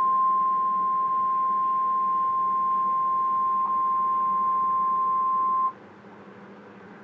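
Emergency Alert System warning tone: a single steady high beep, the NOAA Weather Radio 1050 Hz warning alarm tone, sounding continuously and cutting off sharply about six seconds in, leaving faint hiss. It signals that a Flash Flood Warning is about to be read.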